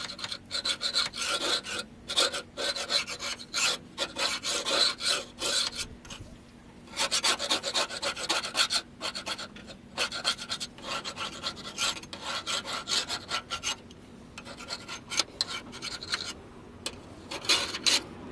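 Hand scraper scraping the underside of a box truck body in quick repeated strokes, in runs broken by a few brief pauses.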